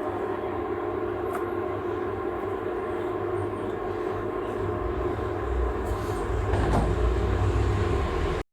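Steady low rumble with a faint hum from a stove burner heating a pot of sitharathai decoction, growing a little louder near the end.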